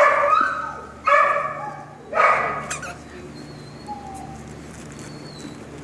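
Puppy barking: three sharp, high barks about a second apart, then it goes quiet.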